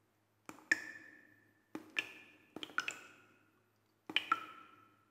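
Water drops dripping onto a hard surface, each landing as a sharp tap with a short ringing ping. They fall in pairs and small clusters about once a second.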